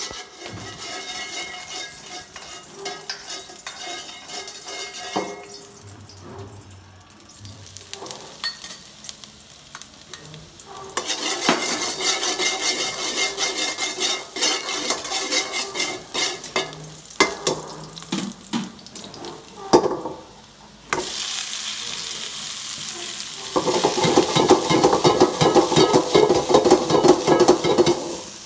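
Food sizzling in oil in a metal wok while a metal spatula stirs and scrapes, clinking against the pan. The sizzle gets suddenly louder about eleven seconds in and again a little past twenty seconds. Near the end come quick, busy scraping strokes as sliced bamboo shoots are tossed.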